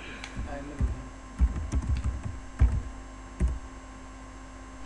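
Typing on a computer keyboard: a handful of irregular key clicks with dull thuds, over a steady electrical hum.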